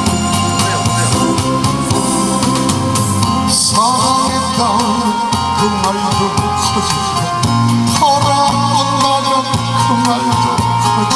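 Amplified live music through PA speakers: a man singing into a microphone over accompaniment with a steady drum beat. The voice comes in about four seconds in and again near eight seconds.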